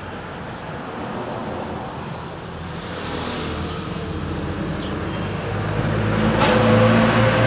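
A motor vehicle on the road approaching. Its engine hum and road noise grow steadily louder and are loudest near the end.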